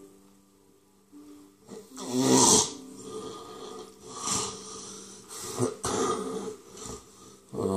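A person gasping and wheezing for breath, in harsh, raspy breaths at irregular intervals. The loudest come about two seconds in and right at the end.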